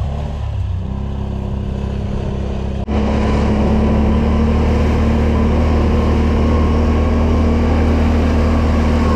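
ATV engine running at a steady speed under way, a continuous drone. It cuts out for an instant about three seconds in, then carries on a little louder and steadier.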